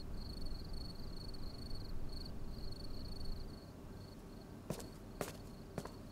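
A cricket chirping in a steady, pulsing trill, over a low rumble that fades about two-thirds of the way through. Three sharp knocks come near the end.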